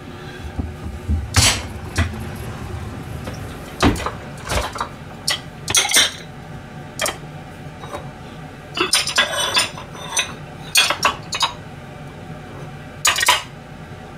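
Ceramic plates and bowls clinking and knocking against each other as they are stacked onto cupboard shelves, in irregular clusters of sharp clinks.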